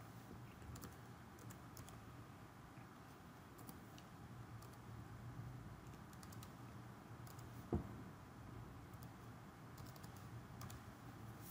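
Faint, irregular keystrokes on a computer keyboard as a number is typed in, with one louder click partway through.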